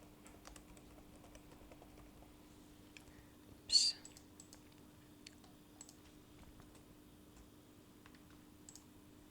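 Quiet room tone with a low steady hum and faint scattered clicks, with one short hiss about four seconds in.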